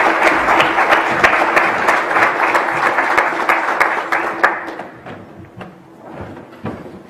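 Audience applauding, with dense clapping that fades out about four and a half seconds in; a few faint knocks follow.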